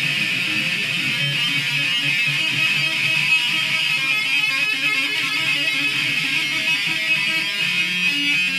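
Stratocaster-style electric guitar played with two-handed tapping on the low E string: a steady stream of quickly changing notes in the key of A major.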